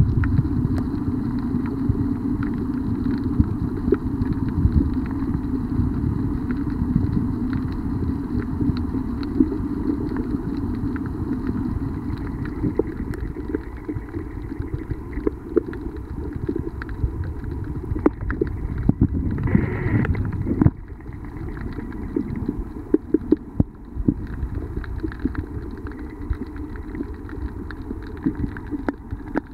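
Muffled underwater noise picked up by a FujiFilm FinePix XP140's built-in microphone while submerged: a steady low rumble with scattered small clicks, getting noticeably quieter all at once about two-thirds of the way through.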